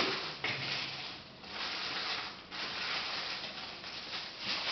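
Irregular rustling and handling noises, with a brief lull a little over a second in.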